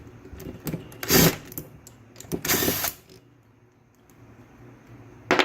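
Small cordless impact tool running in two short bursts, the second one longer, undoing the 14 mm bolts that hold the back cover on a Subaru SVX power steering pump, with small metal clicks in between.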